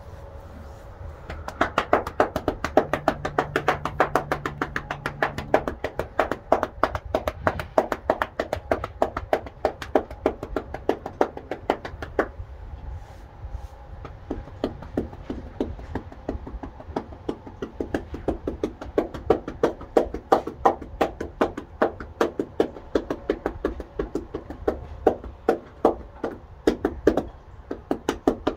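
Hands striking a horse's body in quick percussive massage strokes, several sharp slaps a second. They run for about ten seconds, ease off for a few seconds, then resume.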